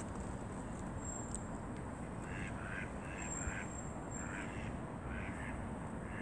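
A duck quacking in short runs of a few calls, starting about two seconds in and again around four and five seconds, over a steady background hiss.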